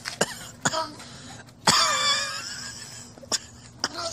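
A person coughing and clearing the throat after a shot of aniseed-flavoured arak spirit. A loud cough comes about a second and a half in and trails off over a second or so, with a few shorter coughs before and after it.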